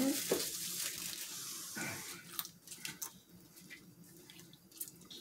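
Quiet eating and food-handling sounds: a soft hiss that fades over the first two seconds, then scattered small clicks and taps.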